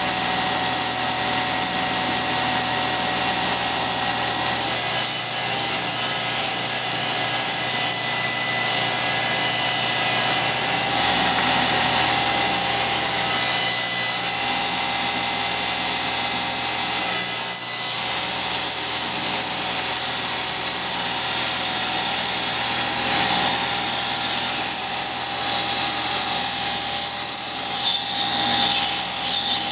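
Cabinet table saw running steadily, its blade ripping a long wooden board lengthwise along the fence, with the cut finishing near the end.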